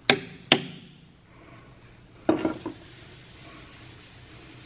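Small hand carving tool chip-carving a wooden longrifle stock, its point cutting and prying into the wood: two sharp clicks near the start, then a short run of clicks and scrapes a little past halfway.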